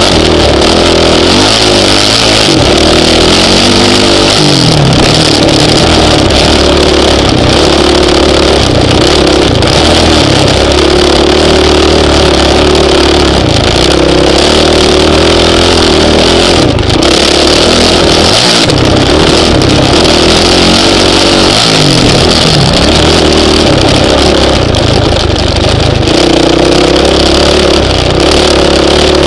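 Honda CRF450X dirt bike's single-cylinder four-stroke engine being ridden hard: loud, revving up and falling back again and again, with a few short throttle cuts.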